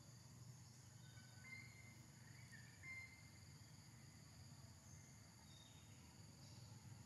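Near silence: faint forest ambience with a steady high insect buzz, and a few faint short high chirps about one to three seconds in.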